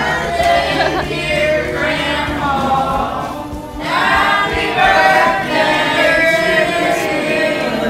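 A song playing, with several voices singing together in a choir-like blend.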